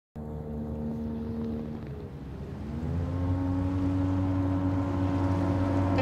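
Small motorboat's engine running across open water. Its pitch dips about two seconds in, then climbs and holds steady, and it grows louder as the boat comes closer.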